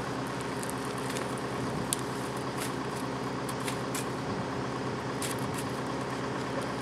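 An engine running steadily at an even pitch, with a few scattered sharp clicks over it.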